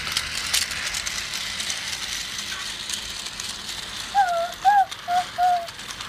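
Battery-powered toy subway train running along plastic track: a steady small-motor and gear rattle with wheels clicking over the track joints. Four short whistle-like notes come between about four and five and a half seconds in, the loudest sounds.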